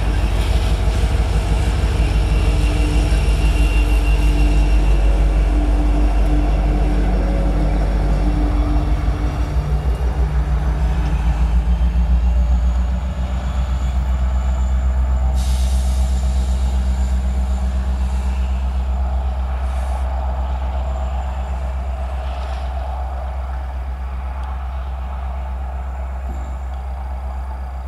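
Freight train of covered hopper cars rolling past with a fast, even clatter of wheels over the rail joints. About halfway through, a trailing diesel locomotive at the end of the train passes with a steady low engine drone, which fades as the train moves away.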